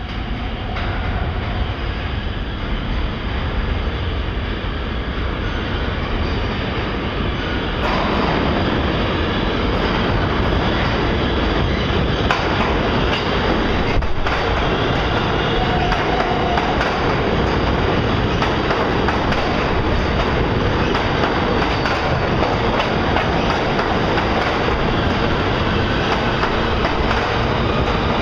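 New York City Subway train coming in through the tunnel and running into the station alongside the platform. Its rumble grows over the first several seconds, and from about eight seconds in, as the cars come alongside, it is a steady loud rush of wheels on rails with fast clicking.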